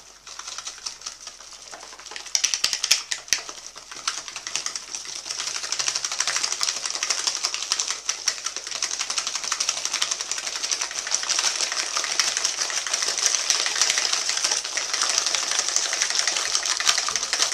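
Wire whisk beating egg, sugar and butter batter in a bowl by hand: a fast, continuous clicking rattle of the wires against the bowl, starting about two seconds in.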